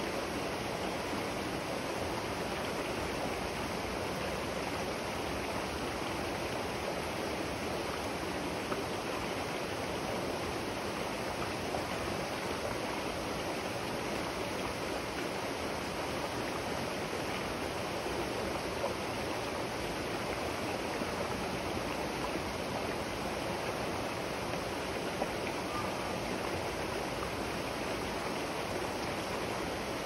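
River water flowing in a steady, even rush.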